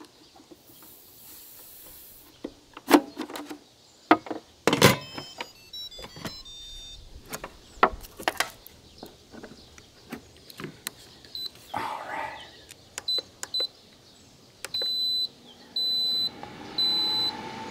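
Knocks and clicks as an air fryer lid is set on an Instant Pot multicooker and its cord is plugged in, with a short falling series of chimes about five seconds in. In the second half, the lid's control panel beeps: several short beeps, then three longer ones as it is set to run.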